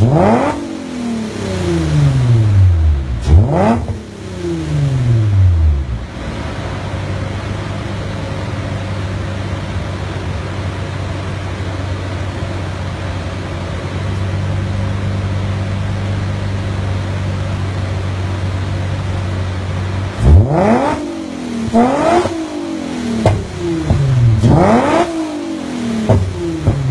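Nissan 350Z's 3.5-litre V6 exhaust, free-revving on a Unichip tune: several quick blips up and back down, then a steady idle, then a rapid run of sharp revs near the end.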